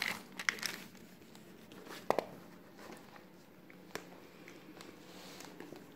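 A few light clicks and taps of small objects being handled, the sharpest about two seconds in, over quiet room tone.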